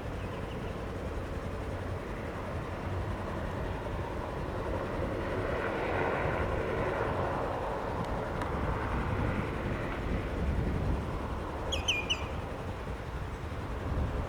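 Pilatus PC-12/47E single-engine turboprop running, swelling to its loudest about six seconds in and then easing off. A bird chirps briefly near the end.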